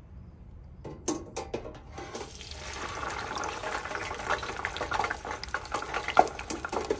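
Raw cut potatoes sizzling and crackling in the hot oil of an electric deep fryer. A wire fry basket clinks a few times about a second in, then the frying starts about two seconds in and grows louder as the fries hit the oil.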